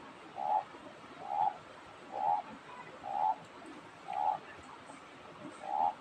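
An animal calling over and over: seven short, evenly spaced notes, about one a second, all at the same middling pitch.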